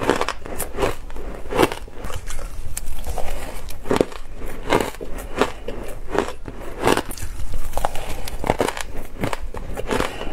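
Shaved ice crunching between the teeth as spoonfuls are bitten, a run of crisp crackling crunches coming irregularly, about two a second.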